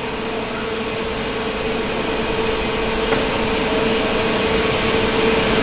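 Hydraulic wheel press's pump unit running with a steady hum, growing slowly louder, as the ram that pushed the wheel off the axle is retracted.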